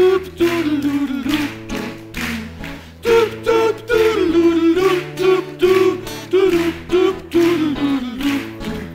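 Live band music: voices singing a melody over strummed acoustic guitars and an electric bass.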